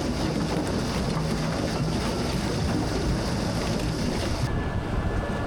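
Farm machinery engine running steadily with a low rumble and wind noise. About four and a half seconds in the high hiss drops away abruptly, leaving the rumble and a steady high whine.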